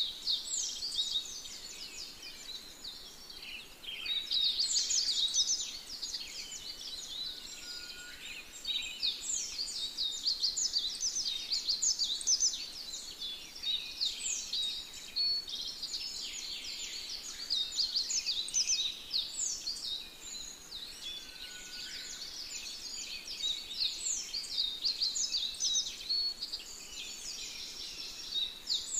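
A chorus of small birds chirping and twittering: many rapid, high, short chirps overlapping continuously, swelling and easing in waves every few seconds.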